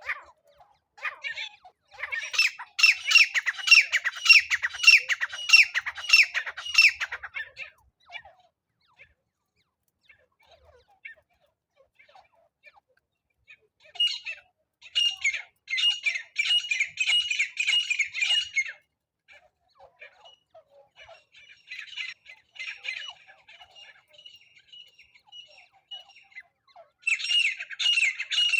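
Francolin calling in bouts of rapid, harsh repeated notes, about four a second. Loud bouts come about 2 seconds in, again around the middle and near the end, with fainter calling just before the last bout.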